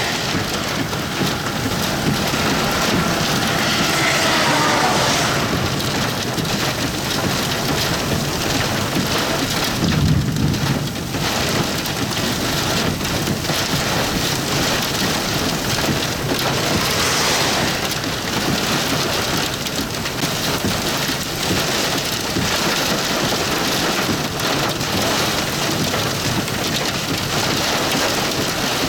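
Heavy rain pelting down steadily in a severe thunderstorm, with a brief low rumble about ten seconds in.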